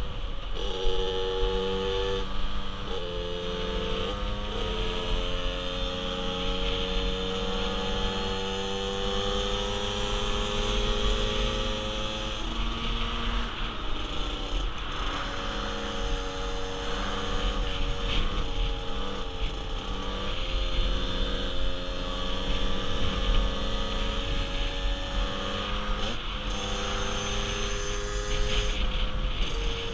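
Small 50cc motorcycle engines running at road speed, their pitch climbing steadily and stepping down at gear changes, over wind noise on the microphone.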